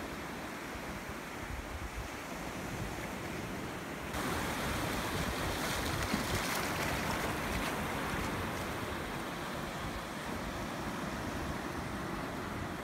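Sea surf washing in over a rocky shore, a steady rushing wash that grows louder and hissier about four seconds in.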